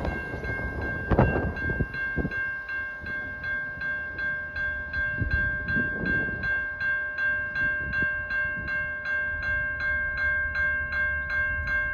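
Railroad grade-crossing bell ringing steadily at about three strikes a second, over the low rumble of a train with a few sharp wheel clacks in the first couple of seconds.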